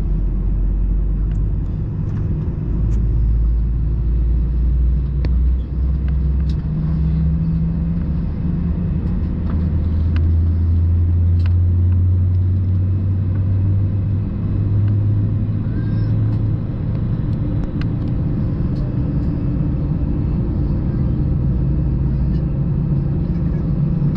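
Steady low drone inside the cabin of an Airbus A320 parked before engine start, with hum tones that shift in pitch, ventilation hiss and a few faint clicks.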